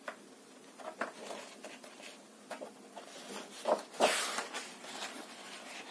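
Paper page of a hardback picture book being handled and turned: a brief rustle about three to four seconds in, with a few small handling clicks before it in an otherwise quiet room.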